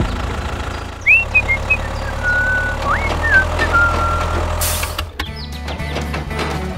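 Tractor-style engine sound running steadily, a low even hum, with a few whistled gliding notes above it in the middle; the sound changes about five seconds in.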